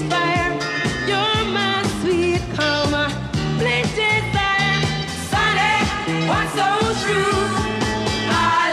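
A 1970s disco song playing: singing over bass and a steady dance beat.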